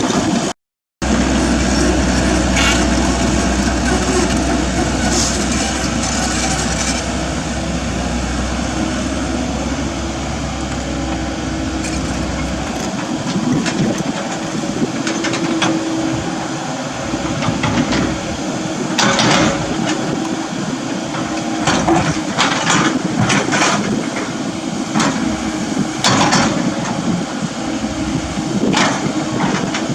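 Komatsu mini excavator's diesel engine running steadily while it digs, with a steady tone throughout and a low hum that stops about halfway through. In the second half come sharp knocks and scrapes, several close together.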